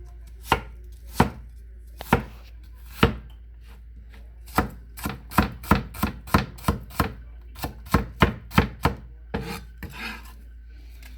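Kitchen knife chopping an onion on a cutting board. A few spaced strokes at first, then a quicker run of about three to four chops a second through the middle, easing off near the end.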